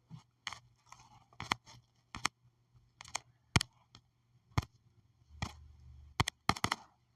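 A series of about a dozen sharp, irregularly spaced clicks and taps, with faint handling noise between them.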